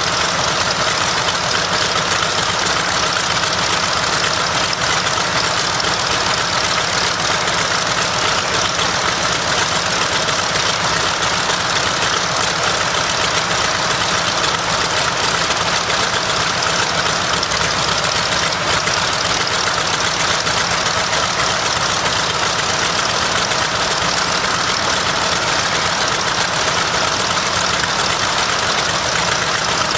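Mitsubishi A6M Zero's Nakajima Sakae 14-cylinder air-cooled radial engine running steadily on a ground test run, its speed holding even with no revving.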